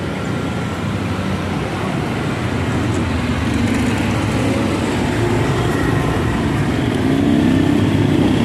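Steady road traffic noise from passing vehicles, growing slightly louder toward the end.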